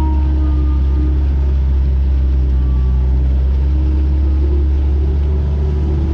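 Kobelco SK120 excavator's diesel engine running steadily, with a few faint higher tones above its low drone.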